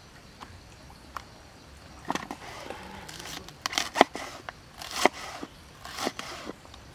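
A large kitchen knife slicing through a raw green cabbage onto a wooden chopping board: crisp crunching cuts with sharp knocks of the blade on the board. They begin about two seconds in and come roughly once a second.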